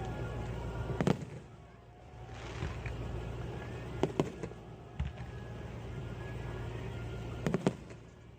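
Fireworks exploding: a handful of sharp bangs a second or more apart, some in quick pairs, over a steady low rumble.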